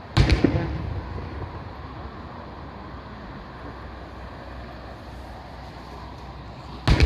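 Two aerial fireworks shells bursting, each a sharp bang followed by a rumbling echo: one just after the start and one near the end, with steady low background noise in between.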